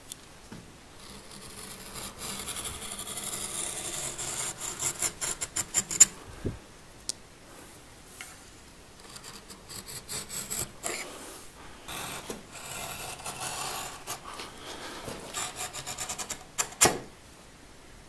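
A kitchen knife with its broken tip ground round, drawn along a straightedge to slice leather into a 4 cm strip: rasping, scraping strokes in two long runs, with sharp clicks among them, the loudest about six seconds in and again near the end.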